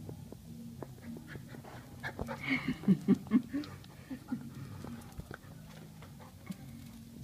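Chow chow giving a quick run of short, loud barks about two to three seconds in, over a steady low hum.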